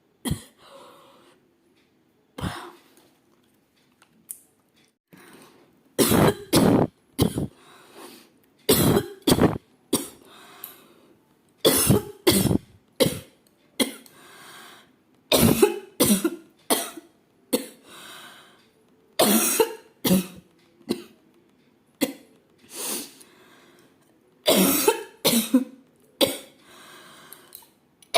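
A woman coughing deliberately over and over, in quick groups of two or three sharp coughs with short gaps between, mixed with throat clearing. The first few seconds hold only faint breaths and small sounds before the coughing picks up again.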